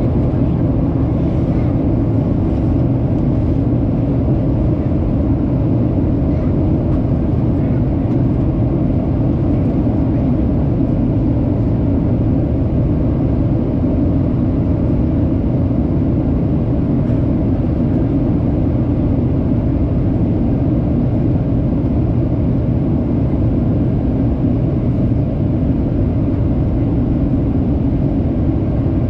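Steady in-flight cabin noise of a jet airliner: engine and airflow noise, a low, even rumble that holds level throughout.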